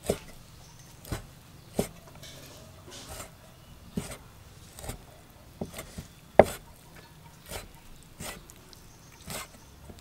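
A meat cleaver chopping raw pork into chunks on a wooden chopping block: about ten separate chops, roughly a second apart, each a knock of the blade through the meat into the wood. The loudest comes about two-thirds of the way through.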